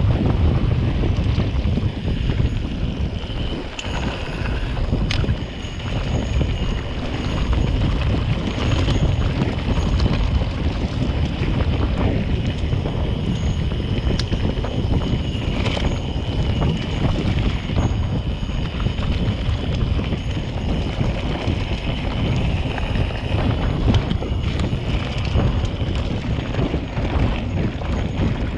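Wind buffeting the microphone and bicycle tyres rolling over gravel on a fast descent: a steady low rumble with scattered sharp clicks and rattles.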